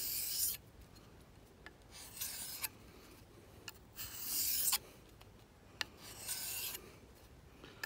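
An O1 tool-steel knife blade drawn across a diamond sharpening plate in four strokes, each about half a second long and about two seconds apart, the diamonds cutting at the steel.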